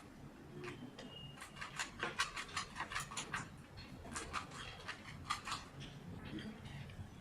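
A 2x2 Rubik's cube being turned by hand: quick, irregular runs of plastic clicks as its layers are rotated.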